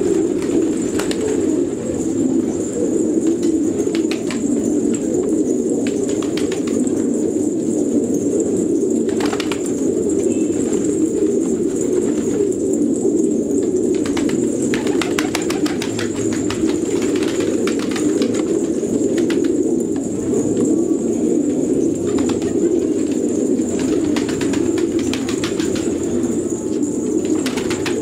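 A flock of fancy pigeons cooing steadily, many voices overlapping, with occasional wing flaps and clicks as birds move and take off.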